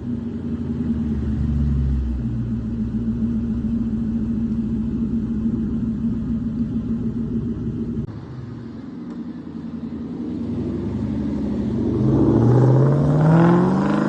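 2001 Ford Mustang GT's 4.6-litre V8 idling through an off-road X-pipe exhaust, then revved up once near the end and let fall back.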